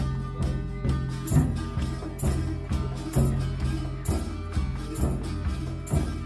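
Folk music: a steady low drone under a slow, regular drum beat, about one stroke a second, with a jingling ring on each stroke.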